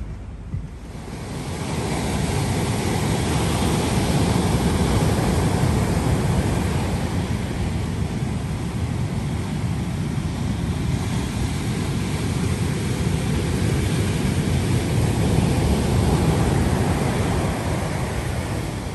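Big post-storm surf breaking and washing up a sandy, rocky beach. It is a steady rush of noise that builds over the first couple of seconds and swells again with the larger waves.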